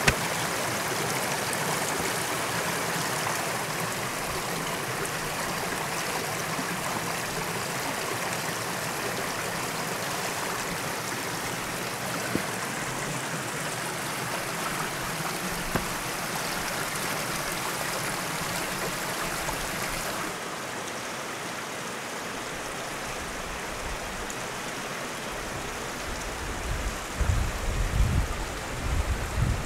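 Creek water rushing steadily over rocks in a shallow riffle, a continuous even wash. It turns a little softer about two-thirds through, and low rumbling bumps come in near the end.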